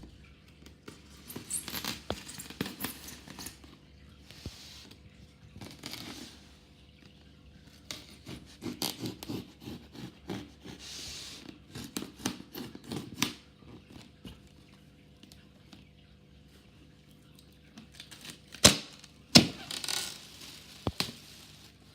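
A cardboard shipping box being opened: packing tape torn and packaging scraped and rustled in irregular bursts. Two sharp knocks near the end are the loudest sounds.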